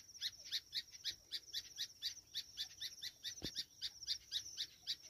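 Grey francolin (teetar) calling in a fast, even run of short, high chirps, about five a second, over a faint steady high buzz.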